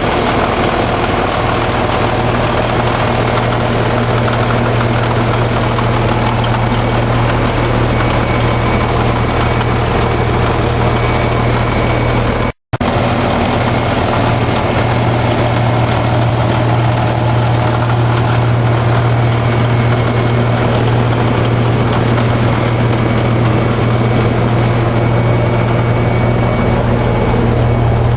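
Caterpillar D9G bulldozer's diesel engine running steadily with a strong low hum. The sound cuts out completely for a split second about halfway through.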